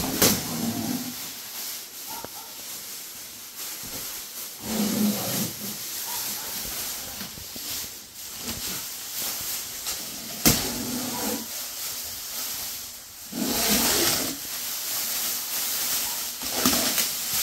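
Thin plastic masking film being pulled down off the cabinets and bunched up by hand, crinkling and rustling in swells, with one sharp snap about ten seconds in.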